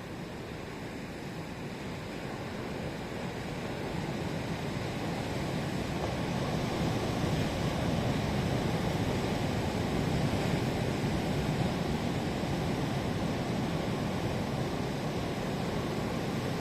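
Sea surf washing onto the shore, a steady rush of breaking waves that swells louder over the first several seconds and then holds.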